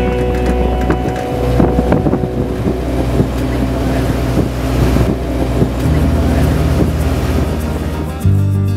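A vehicle engine running at road speed, with wind buffeting the microphone.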